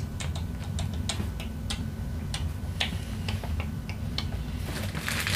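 Irregular light clicks, about three a second, from the metal hatch lid on the stern of a Proboat Jetstream RC jetboat being twisted and tugged by hand. The lid is held on by a magnet, not a thread, so the twisting gets nowhere. A denser rustle comes in near the end.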